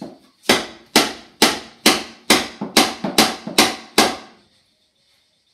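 Hammer striking the wooden cabinet of an old big-screen TV being broken apart: nine hard blows, about two a second, each ringing briefly, then they stop.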